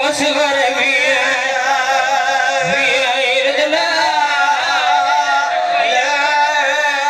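A man chanting a melodic religious recitation into a microphone, amplified over a loudspeaker, with long wavering held notes.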